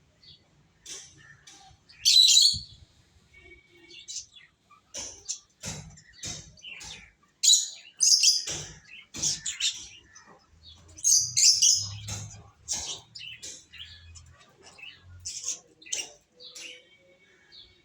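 Pet lovebirds chirping: a busy run of short, sharp, high chirps at irregular intervals, loudest about two seconds in and again from about seven to twelve seconds in.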